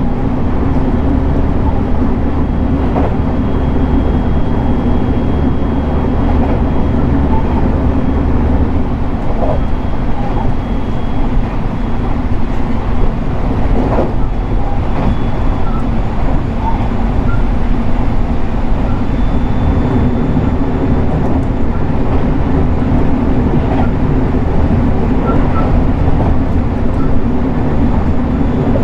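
JR West 223 series 2000-subseries electric multiple unit running steadily: a continuous low rumble of wheels on rail, with a few sharp knocks from the track.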